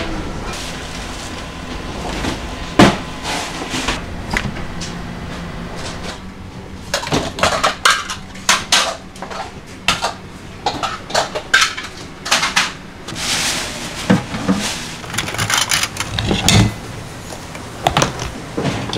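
Small yellow metal braising pots clattering and clanking against each other as they are handled and stacked. A run of sharp metallic knocks fills the second half, after a single loud knock a few seconds in.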